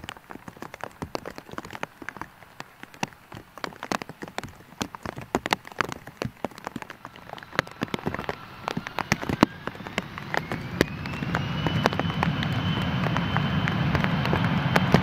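Rain patters in many sharp taps. About halfway through, an Embraer airliner's turbofan engines spool up: a whine rises and then holds high over a growing rumble as power comes up for takeoff.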